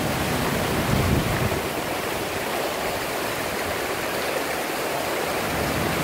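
Mountain stream swollen by days of heavy rain, rushing steadily over rocks in small waterfalls. The water is loud.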